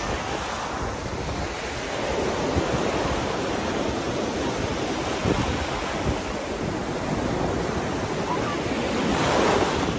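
Ocean surf breaking and washing up over a black sand beach, a wave swelling louder near the end, with wind buffeting the microphone.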